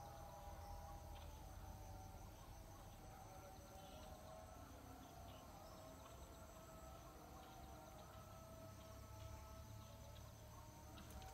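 Faint, steady insect chorus: several high-pitched trills sounding together without a break, over a faint low rumble.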